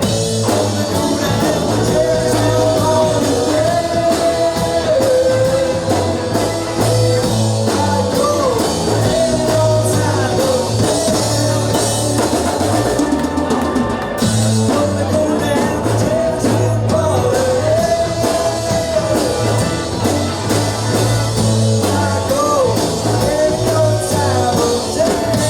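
Live rock and roll band playing an instrumental passage: drum kit, a steady bass line and a lead melody with pitch bends.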